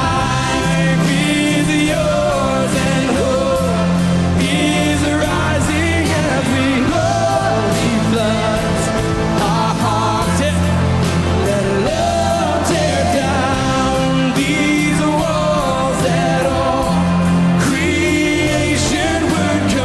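Live worship band playing a song with bass, chords and singing that carries on throughout.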